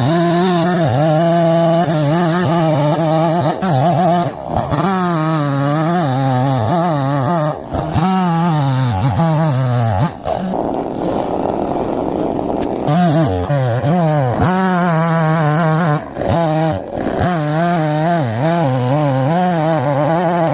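Chainsaw running at high revs while cutting through a large tree, its pitch wavering and dipping again and again. About ten seconds in the pitch falls away and turns rough for a couple of seconds before the saw revs back up.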